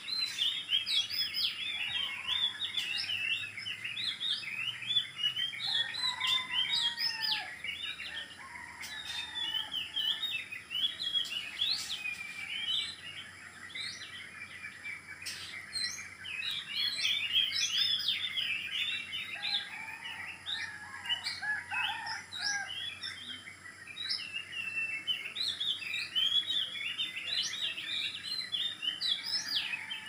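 A dense chorus of many birds chirping at once: short, high, rapid calls overlapping throughout, with a few lower calls mixed in now and then.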